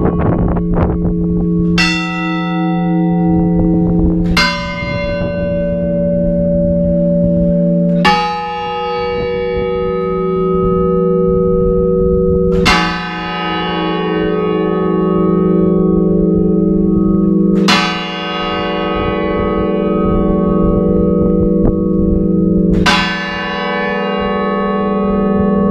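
Church bells tolling 'a clamor', the Spanish mourning toll, heard from inside the belfry: six single strokes a few seconds apart, each left to ring out and hum on until the next. The strokes fall on bells of different pitch.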